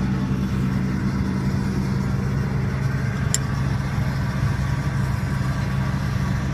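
Heavy logging machine's diesel engine idling steadily, with one sharp metallic click about halfway through.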